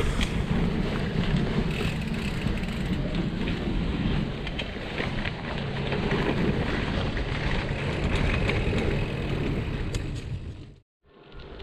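Wind buffeting the microphone of a bicycle rider's chest-mounted camera, over the rumble of bicycle tyres rolling on a village lane, with faint clicks and rattles. The sound drops out abruptly near the end.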